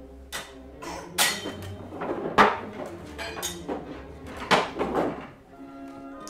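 A series of sharp knocks and clinks of tin cups being handled and set down on a wooden tabletop, with faint music coming in near the end.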